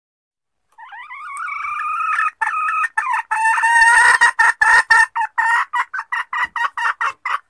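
A junglefowl hen calling: a drawn-out wavering note that swells, then a fast run of short clucks, about four a second, stopping just before the end. This is the hen's lure call, used to draw wild junglefowl cocks out of hiding.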